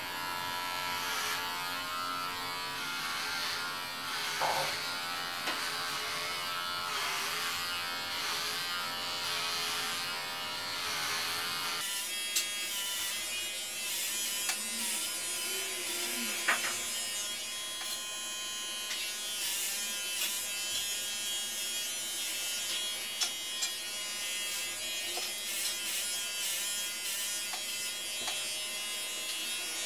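Electric hair clippers buzzing steadily as they are run over the scalp, shaving short hair down close. The tone changes abruptly about twelve seconds in.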